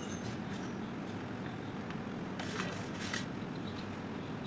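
Dry sand trickling from a hand onto a steel plate of powdered colour and chalk lumps, with a few crisp crackles a little past halfway.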